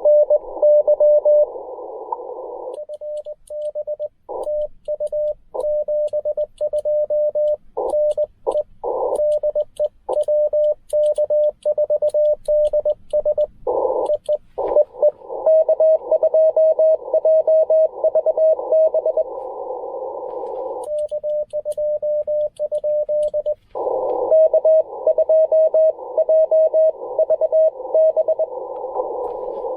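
Morse code (CW) on a Ten Tec Argonaut V transceiver: a single tone is keyed on and off in dots and dashes. Part of the time it is received signals inside a narrow band of band hiss. For about ten seconds from roughly three seconds in, and again briefly about two-thirds through, it is the operator's own clean sidetone, with the faint clicking of the paddle key.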